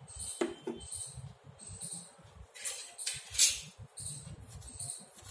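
Steel spoon clinking and scraping on a ceramic plate as cornflour is spooned onto mashed potato and paneer, with a sharp clink about half a second in and a louder scrape about three seconds in. A faint high chirp repeats about every 0.7 seconds in the background.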